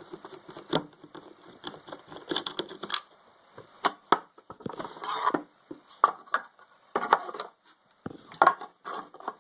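Packaging of a new compressor pressure switch being handled and opened: irregular rustling and crinkling with scattered sharp clicks and taps.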